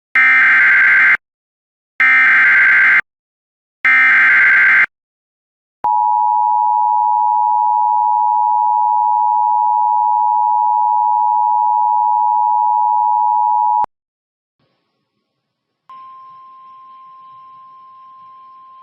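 Emergency Alert System broadcast tones. First come three one-second bursts of the SAME digital header, a harsh data screech repeated about two seconds apart. Then the two-tone EAS attention signal holds steady for about eight seconds and cuts off. After a short silence a much fainter single steady tone begins, marking the start of the next weather warning.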